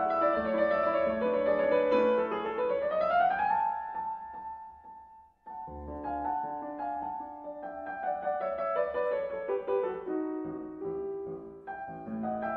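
Background piano music: a melody over held notes, with a rising run of notes and a brief pause about five seconds in.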